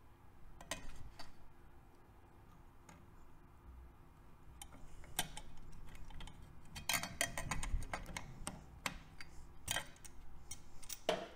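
Irregular light metallic clicks and taps of needle-nose pliers against the starter idle gear and crankcase of a Honda CBX 1000 engine as a small washer is worked into place. The clicking is sparse at first and comes thicker about halfway through.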